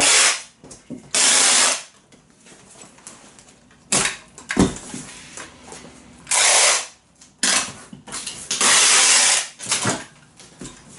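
Packing tape being pulled off a handheld tape-gun dispenser onto a cardboard box in about five noisy pulls, short and long, with two sharp knocks around four seconds in.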